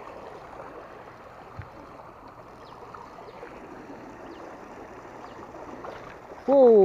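Steady rush of water pouring out through a river sluice gate, with one small knock about a second and a half in. Near the end comes a loud, short exclamation from a man, falling in pitch.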